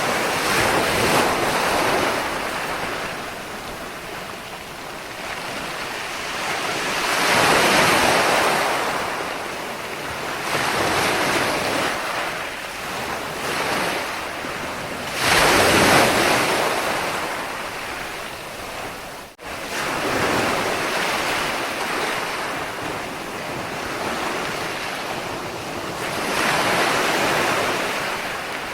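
Ocean waves breaking and washing in, the surf swelling and fading every several seconds, with the biggest surge about halfway through. A brief sudden dip cuts the sound for an instant a little past the middle.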